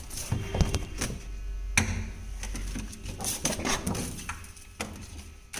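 Irregular light knocks and clatter of things being handled and set down on a fridge shelf as a mat is laid on the rack, with one sharper knock a little under two seconds in.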